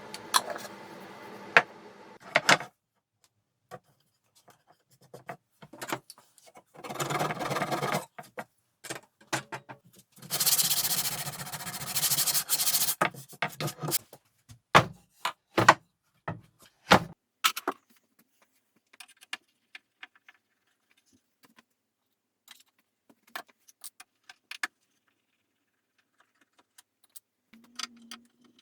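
Workshop handling sounds: a steady hum that stops about two and a half seconds in, then two stretches of scraping a couple of seconds each, and scattered clicks and knocks, thinning out toward the end.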